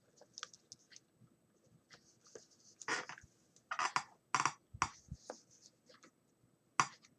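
Rustling and sharp light clicks of packaging and a small decorated box being handled, with a cluster of louder scratchy strokes about three to five seconds in and one more near the end.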